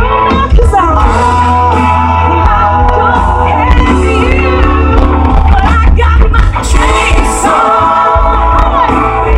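Live country-rock band playing loud, with a singer's voice over a heavy, steady bass and a few shouts.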